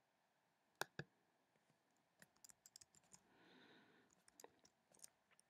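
Computer clicks while drawing in a 3D modelling program: two sharp clicks close together about a second in, then a scatter of faint clicks and ticks with a brief soft rustle, over near silence.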